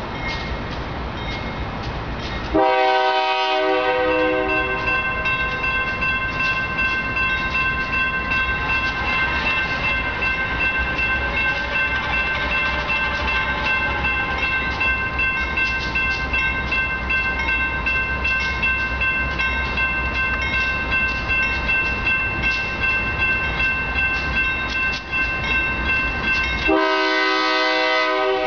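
A locomotive horn sounds a long blast about three seconds in and again near the end. Between the blasts, a railroad crossing bell rings steadily and rapidly as the crossing signals warn of an approaching train.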